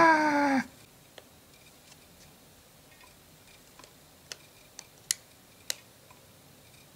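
Swiss Army knife blade prying the steel back off an iPod 4th generation's plastic front: a handful of sharp, separate clicks, the last ones loudest, as the case's retaining tabs give way. It opens with a brief high squeal that slides down in pitch and stops within the first second.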